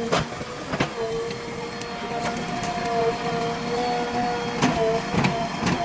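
JCB 3DX backhoe loader at work: the engine running under load with a steady hydraulic whine, which rises to a second, higher tone about two seconds in. Several sharp metallic knocks come through it, near the start and again near the end.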